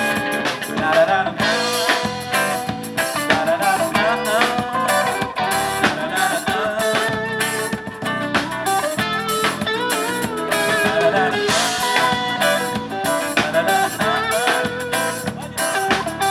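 Instrumental break of a pop-rock song: a guitar lead over drums, with no singing.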